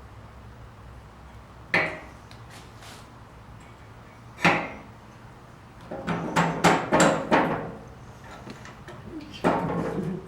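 Hammer blows punching a hole in a motorcycle seat pan for a Dzus fastener. Two single sharp strikes come a few seconds apart, then a quick run of several strikes, then a longer rougher burst near the end.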